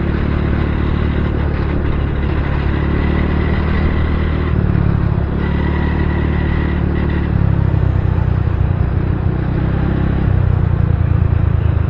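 Motorcycle cruising along a highway: steady wind and road rush over the engine's low running note.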